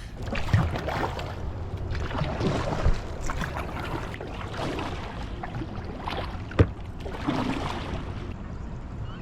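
Canoe on the water: paddle strokes splashing and water sloshing irregularly, with a single sharp knock about six and a half seconds in.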